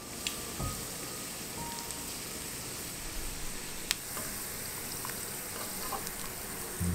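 Food frying in an oiled pan, a steady sizzle with a few sharp pops.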